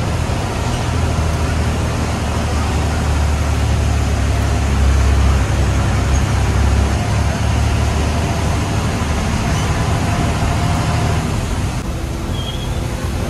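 Bus engine running with a low drone and road noise, heard from inside the front of the cabin while the bus is under way. It grows louder about five seconds in, then eases off a little near the end.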